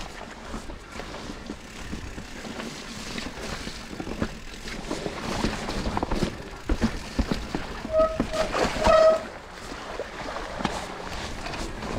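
Mountain bike being ridden over a rough trail: tyre noise with the bike rattling and knocking over bumps. About eight seconds in comes a brief high squeal in three short notes.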